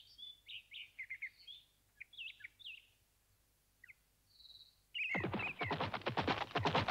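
Birds chirping, a few short calls at a time. About five seconds in, fast, evenly spaced hoofbeats of a galloping horse start suddenly and are much louder than the birdsong.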